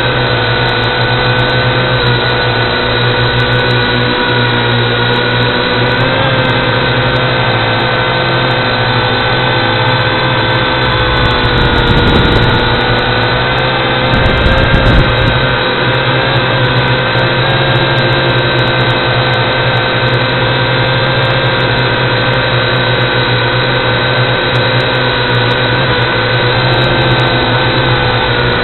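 Steady whine of a remote-controlled model's motor, heard from the camera it carries, its pitch shifting only slightly; it grows louder and rougher twice, about halfway through.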